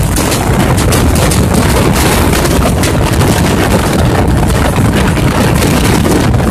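Wind buffeting the microphone at the open door of a moving express train, over the steady rumble of the coaches running on the track.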